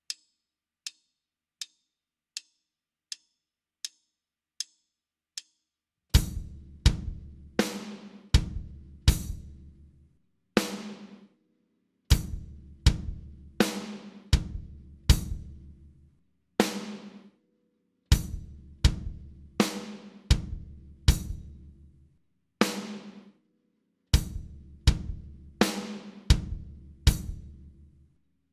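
Eight light clicks about three-quarters of a second apart count in. Then a drum kit plays a slow quarter- and eighth-note reading exercise at 40 beats per minute: bass drum and snare strokes with cymbals ringing out, in short groups separated by rests.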